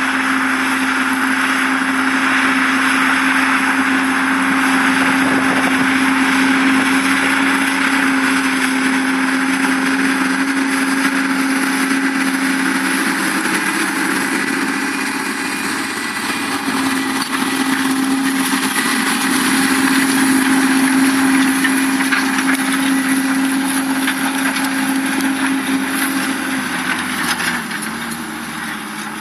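New Holland 8870 tractor's diesel engine running steadily under load while pulling a plough, a constant drone that dips briefly about halfway through and fades away near the end.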